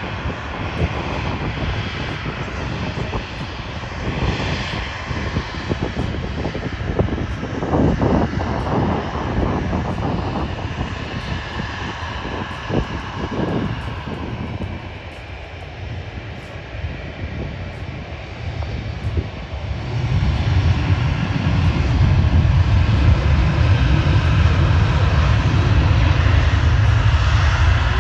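Boeing 737-800 jet airliner engines running, a steady roar that grows louder and deeper about twenty seconds in.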